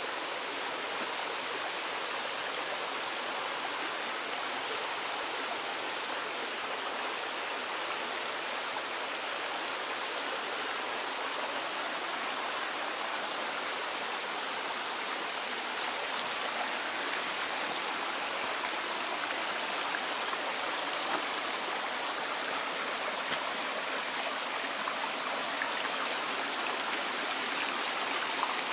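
Mountain stream running over rocks and small cascades: a steady rush of water that holds even throughout.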